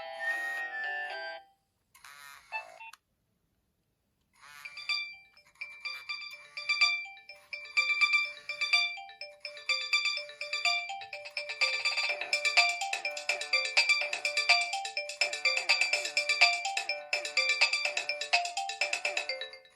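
Nokia 2600 ringtones playing one after another. One melody ends about a second and a half in and a brief snippet follows. After a short silence a new ringtone starts, its repeating tune growing fuller and busier about halfway through.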